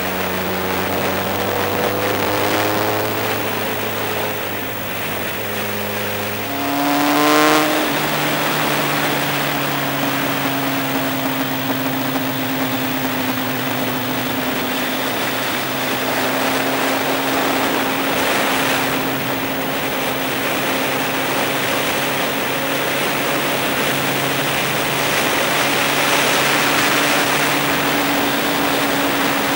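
Motorcycle engine pulling at steady road speed, its revs rising sharply about seven seconds in and then holding steady, under a constant rush of wind and road noise.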